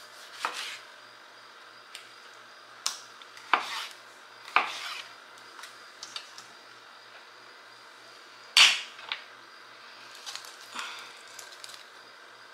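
Scattered knocks and clinks of a kitchen knife, cutting board and bowl as tomatoes are trimmed and dropped into the bowl. About nine separate strikes come at uneven intervals, the loudest about eight and a half seconds in.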